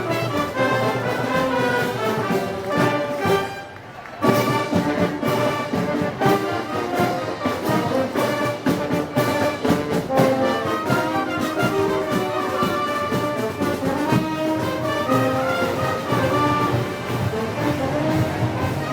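Brass band playing festival music, with trombones and trumpets. The music dips briefly about four seconds in.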